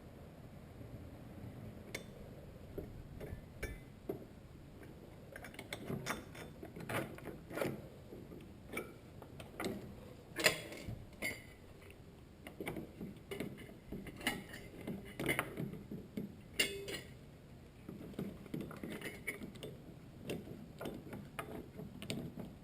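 Irregular metallic clicks and clanks of hand tools and the engine mount's metal parts as the mount is worked into line with its bolt holes, with some louder knocks scattered through.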